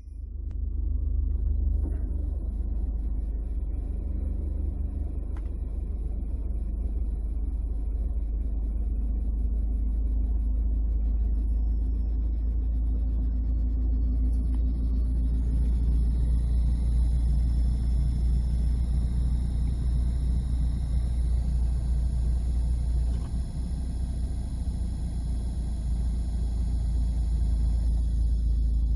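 Suzuki Swift Sport ZC31S heater blower motor running in the car's cabin: a steady low rumble with a hum, joined about halfway through by a higher whine.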